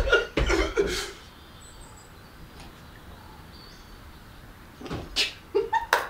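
People laughing, trailing off after about a second. Then quiet room tone with a faint bird chirp, and a couple of short knocks near the end.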